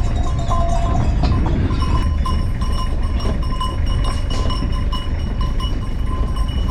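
Bells worn by a flock of sheep clanking irregularly and repeatedly as the animals move, over a steady low rumble.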